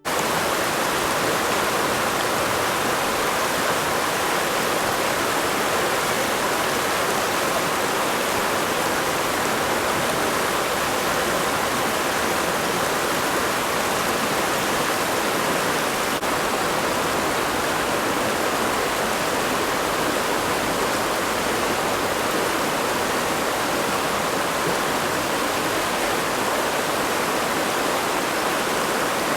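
A river flowing, a steady, even rushing of water over stones.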